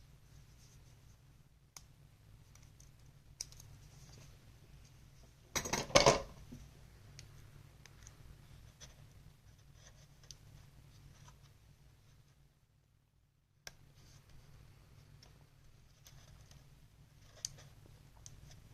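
Adhesive tape being handled and applied inside an open laptop: scattered small clicks and scratches, with one loud crackle about six seconds in.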